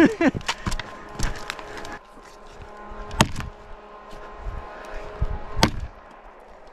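Sharp knocks of an axe striking a log: a few light taps, then two loud blows a couple of seconds apart, over a faint steady hum.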